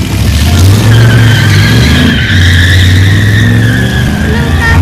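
A 1950s Chevrolet Bel Air sedan revving hard as it spins its rear tyres. A high tyre squeal rides over the engine's deep drone, and the drone dips briefly about two seconds in.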